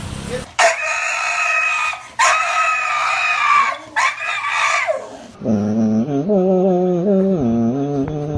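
Animal calls: three loud, drawn-out high calls one after another, then a lower, wavering howl-like call that carries on to the end.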